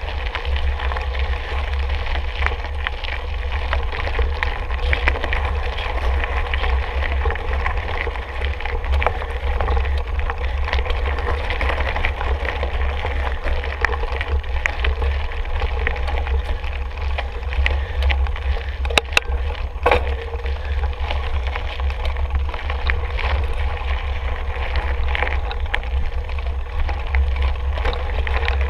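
Mountain bike riding over a rough trail: wind rumbling steadily on the microphone, with tyre noise and frequent small rattles and knocks from the bike. Two sharper knocks come about two-thirds of the way through.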